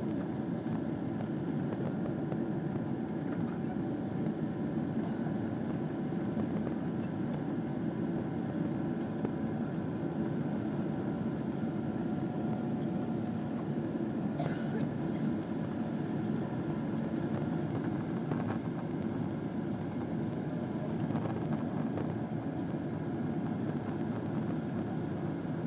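Steady engine and airflow noise inside the cabin of a Boeing 777-200 climbing out after take-off.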